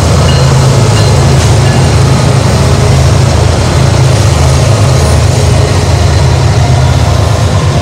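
Several BNSF diesel-electric freight locomotives passing close by, their engines running with a loud, steady deep drone.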